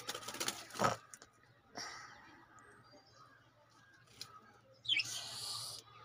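Budgies on a perch: a quick flutter of wings in the first second, a few faint chirps, then a short harsh, raspy chatter about five seconds in.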